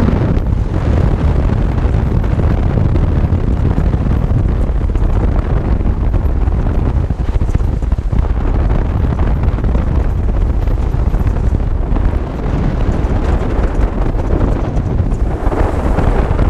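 Wind buffeting the microphone of a camera mounted on the outside of a moving 2001 Jeep Cherokee, a loud steady low rumble with the Jeep's tyre and driving noise under it. It turns briefly harsher near the end.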